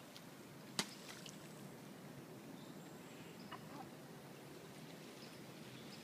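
Faint outdoor background hiss with one sharp click or knock about a second in.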